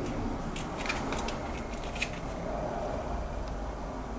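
Ferret scuffling with a stuffed toy: soft rustling with a few light clicks and taps scattered through.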